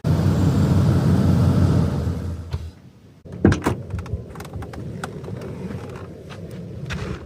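A vehicle's low rumble that runs loud for the first few seconds and then drops away, followed by a few sharp clicks and knocks over a quieter steady rumble.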